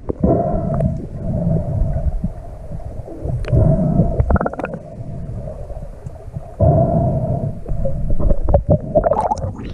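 Muffled underwater sound from a camera held under the surface of a lake while snorkeling: a low rumble of water moving against the housing, with a steady hum in two stretches and short bubbly bursts between them.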